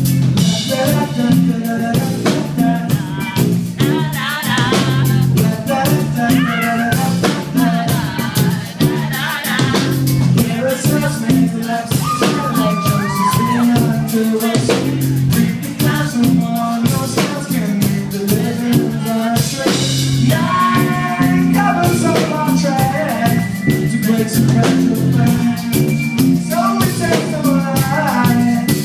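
Live band playing a funky rock song: a singer over a busy drum kit and steady low bass notes.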